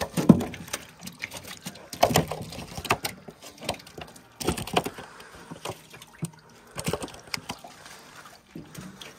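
Live fish splashing and flapping in a shallow tub of water as they are handled: irregular wet slaps and splashes.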